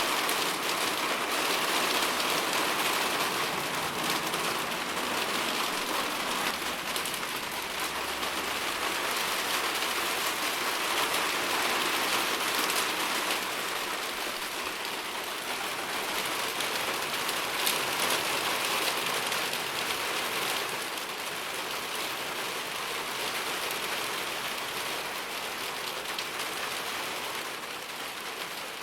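Steady rain falling on a surface, an even hiss with the patter of many individual drops.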